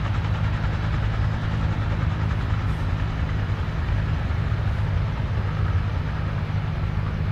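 Helicopter running steadily with a low, unchanging mechanical drone from its rotor and engine.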